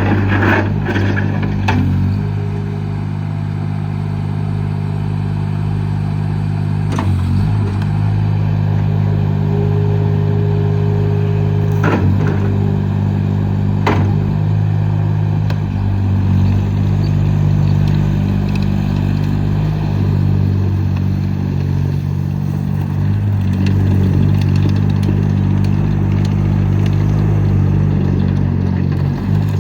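ASV RT25 loader's diesel engine running steadily, its speed shifting slightly now and then. A few sharp clanks come from the machine about 1, 7, 12 and 14 seconds in.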